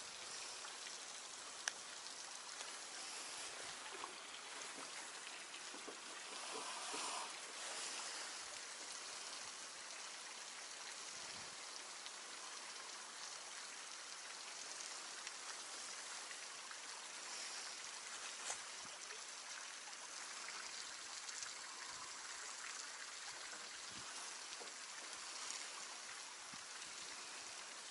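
Faint, steady outdoor hiss of still lakeside air and water, with a few small clicks and rustles as hands handle fishing line and tie on a small lure.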